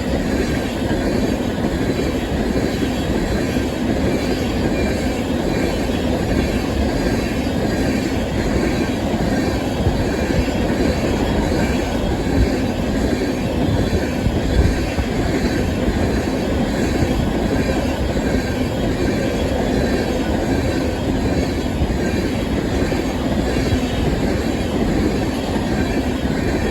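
A freight train's cars rolling steadily past at close range, their steel wheels running on the rails.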